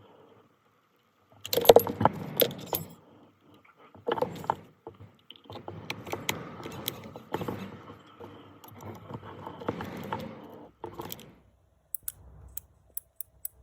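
Small metal parts and tools clinking and rattling as they are handled, in irregular bursts of sharp clicks with short pauses, loudest a couple of seconds in.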